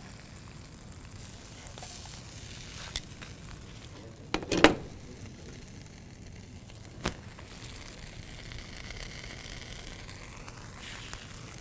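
Quesadillas frying quietly in a skillet, a soft, steady sizzle. A few sharp knocks of utensils or cookware break in; the loudest comes about halfway through.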